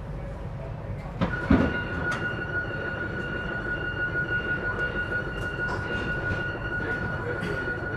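CAF Civia electric multiple unit running on rails with a low rumble and scattered clicks. About a second and a half in there is a clunk, after which its Siemens traction inverter gives a steady high-pitched whine that holds to the end.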